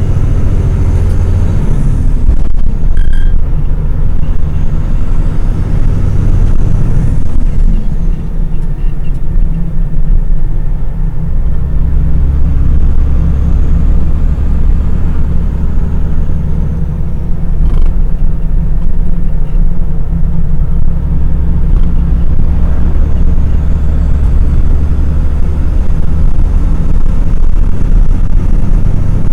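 Logging truck under way, heard from the cab: a loud, steady low rumble of the diesel engine and drivetrain with road noise. The engine note shifts a couple of times, about two and eleven seconds in.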